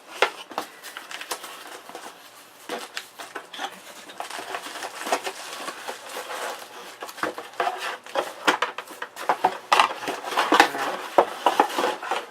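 Irregular clicks, light metal clinks and rustling as computer hardware is handled in and around a PC case, busier in the second half.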